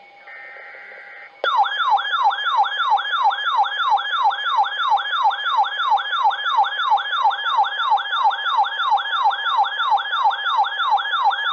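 Emergency Alert System broadcast: a short buzzing digital header burst, then about a second and a half in a loud electronic siren-style alert tone starts. It falls in pitch over and over, about three sweeps a second, for about ten seconds, signalling the start of a new weather warning, and it cuts off abruptly near the end.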